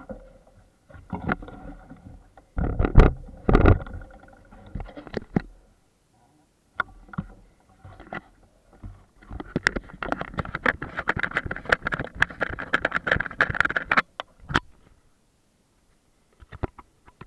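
Knocks, scrapes and rattling from handling right at the camera's microphone: a few heavy bumps in the first few seconds, then a busy run of small clattering knocks, with quiet gaps in between.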